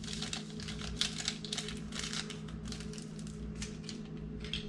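Paper sweetener packets crinkling and rustling as they are torn open and emptied into a bowl, a dense run of small irregular ticks and taps, over a steady low hum.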